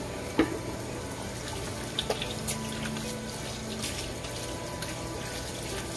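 Kitchen faucet running steadily into a stainless steel sink as hands are rinsed under the stream. A sharp knock comes about half a second in, and a few lighter taps follow around two seconds in.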